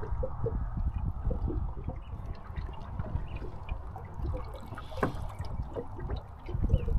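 Water lapping and gurgling against the hull of a small sailing boat under way, with a low wind rumble on the microphone and a single sharp click about five seconds in.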